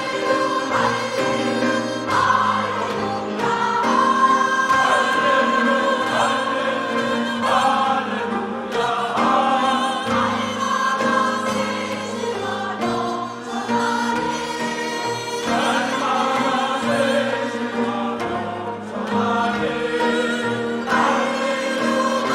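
Church choir singing a hymn in the gugak style, Korean traditional music, with many voices holding long notes together.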